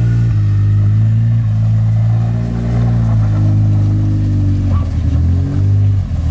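Side-by-side UTV engine running steadily as the machine is driven slowly over gravel, its pitch shifting a little about halfway through and again near the end.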